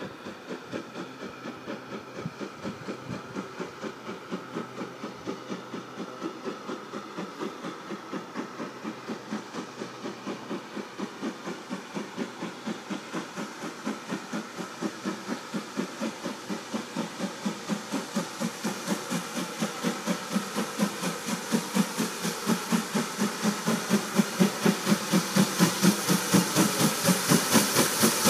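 GWR Large Prairie 2-6-2 tank steam locomotive 4141 working a train, its exhaust chuffing in steady beats about three a second and growing steadily louder as it approaches.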